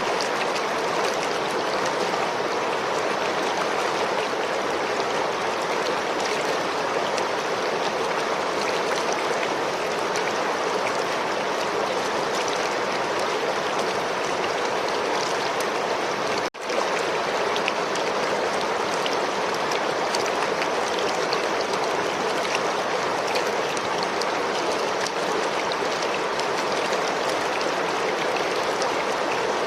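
River or stream water flowing steadily, a constant even rushing with no let-up, broken only by a momentary gap in the sound about halfway through.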